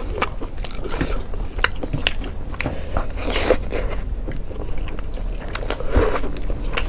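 Eating sounds: chewing with many sharp wet mouth clicks, and louder bites about halfway through and near the end, over a steady low hum.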